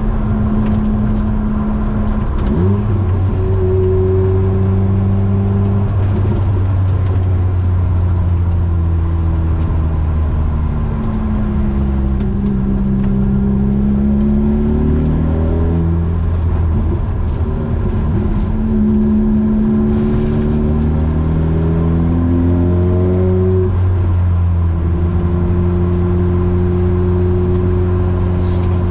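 Opel Speedster's four-cylinder engine through a Larini de-cat exhaust with a stainless back box, heard onboard: the engine note climbs and falls back a few times as the car is driven through the gears, then holds steady near the end.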